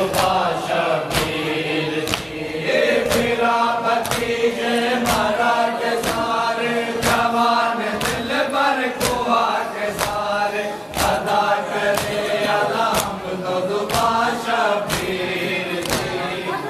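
A group of men chanting a nauha, a Shia lament, in unison, with sharp slaps of hands beating on chests (matam) falling on the beat about once a second.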